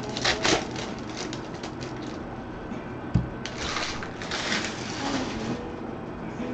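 Sealed card packs rustling and crinkling as they are handled, in two spells, with a single knock on the table about three seconds in, over soft background music.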